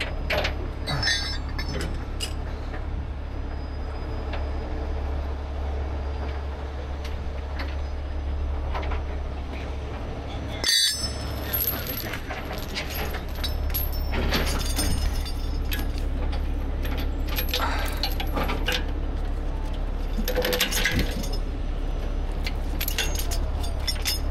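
Half-inch grade 10 recovery chain clinking and rattling as it is handled and rigged to the overturned truck's frame, over a steady low hum.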